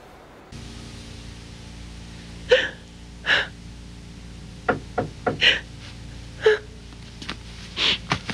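A young woman crying quietly: a string of short, catching sobbing breaths, about eight of them from a couple of seconds in, over a faint steady low hum.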